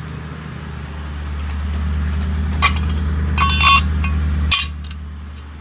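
Metal hand tools clinking and clattering together a few times with short ringing notes, over a steady low hum that drops off suddenly near the end.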